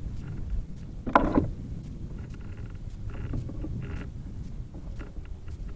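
Low rumble of wind and water around kayaks while a caught fish is handled, with one brief louder sound about a second in and a few light clicks near the end.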